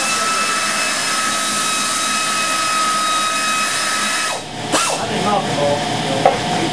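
A 1950 Nash compressor running steadily with a high whine. The sound dips briefly about four and a half seconds in, then picks up again.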